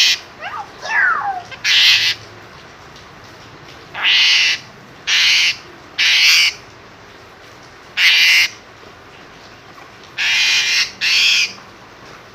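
Asian pied starling (jalak suren) screaming: eight harsh calls of about half a second each at irregular intervals, with a few short whistled glides between the first two.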